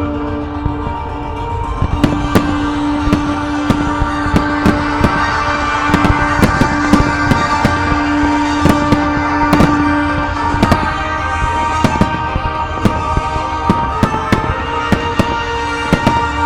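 Fireworks display: a rapid, continuous string of sharp bangs and reports from exploding fireworks, over music playing with long held tones.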